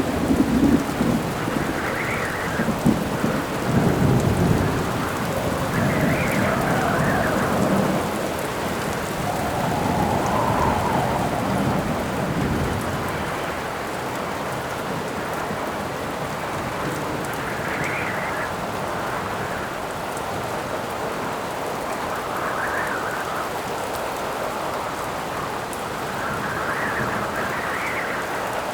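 Rainstorm: steady heavy rain, with thunder rumbling through the first dozen seconds and wind howling in gusts that swell and fade every few seconds.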